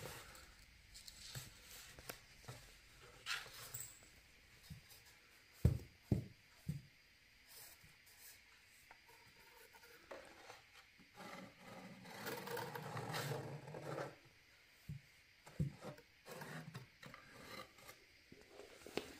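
Tabby cat moving about inside a cardboard box: a few dull knocks against the cardboard and faint scraping and rubbing, with a longer spell of rubbing about twelve seconds in.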